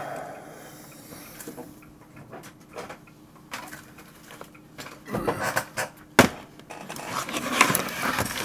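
Hand handling of an opened floppy drive being put back in place: light scattered clicks and scrapes, then from about five seconds in a busier run of knocks and rattles, with one sharp knock about six seconds in.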